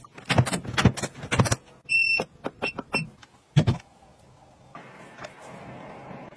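A quick run of sharp plastic clicks and knocks, then a short electronic beep and two briefer beeps, one more knock, and a faint steady hiss.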